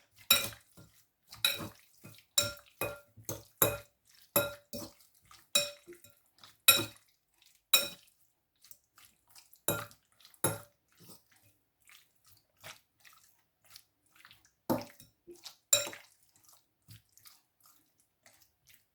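A spoon clinking against a mixing bowl as raw chicken strips are stirred through their seasoning. The ringing knocks come about twice a second at first, then slow to a few scattered strikes after about eight seconds.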